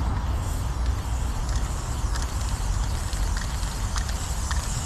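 Aerosol spray paint can hissing as grey fill is sprayed onto a corrugated metal wall, with short clicks here and there, over a steady low rumble.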